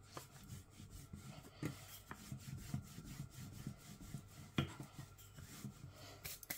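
Hands folding and pressing paratha dough on a floured kitchen counter: soft, irregular rubbing with light taps, the sharpest about four and a half seconds in.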